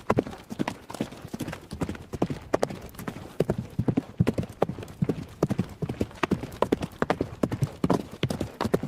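A horse galloping: hoofbeats in a quick, rolling rhythm that repeats in clusters, several strikes a second, without a break.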